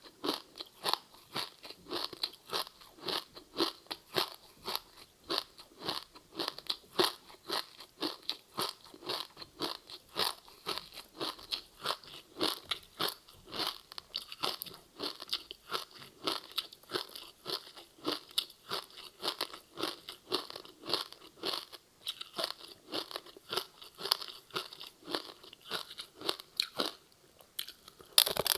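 Close-up chewing of crispy seaweed-wrapped rice: a steady run of crisp crunches, two or three chews a second, pausing briefly near the end.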